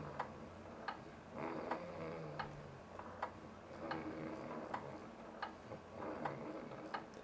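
A man snoring, each snore a low, buzzing tone about a second long, coming roughly every two seconds. A sharp tick sounds steadily about every three-quarters of a second through it.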